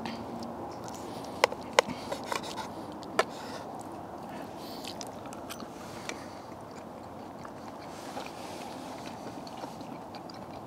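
Metal knife and fork clicking sharply against a plate about five times in the first few seconds as a bacon-wrapped sausage is cut, then chewing over a steady background hiss.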